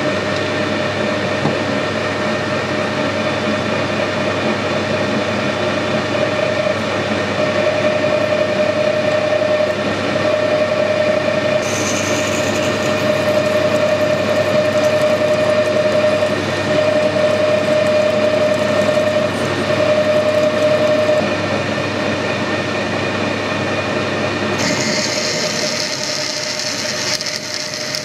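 Metal lathe running steadily, its headstock drive giving a constant hum with a whine that grows stronger through the middle, while a twist drill fed from the tailstock bores into the end of a steel key-stock bar held in the chuck. A high hiss comes in about halfway and again near the end.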